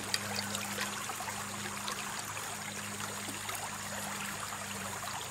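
Shallow stream riffle running over rocks: a steady rush of water with scattered small clicks, close to the water's surface, over a faint steady low hum.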